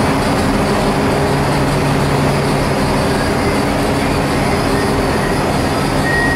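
AFE diesel railcar's engine idling steadily while the train stands at the platform: a continuous low mechanical hum.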